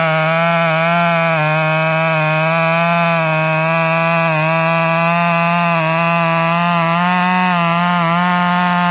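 Stihl MS 194 T two-stroke top-handle chainsaw, fitted with a 1/4-inch pitch chain and sprocket, held at full throttle under load as it cuts steadily down through a hickory round. The engine note holds nearly steady with slight dips as the chain bites.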